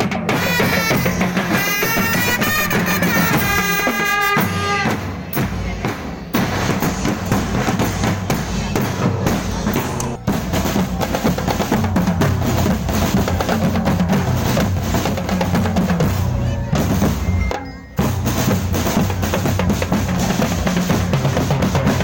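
Music with loud, busy drumming, dense strikes throughout. A wavering melody line rides over the drums in the first four seconds.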